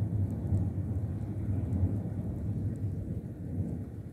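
Rolling thunder from a nearby thunderstorm: a continuous low rumble that rises and falls without a break.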